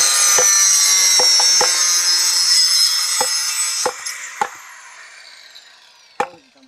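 A power saw runs at full speed cutting wooden formwork boards, then is let off about four seconds in and winds down with a falling whine. Hammer blows knock on the timber at irregular intervals, about eight of them.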